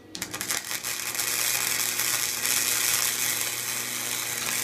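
Electric arc welder laying a tack weld on a stacked steel billet: the arc strikes with a few crackles, then runs as a steady hissing crackle over a low electrical hum.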